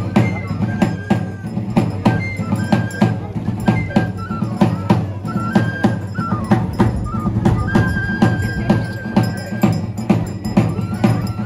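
Traditional dance music: a large drum beaten in a steady rhythm under a high, thin melody of short notes, with one long held note about eight seconds in.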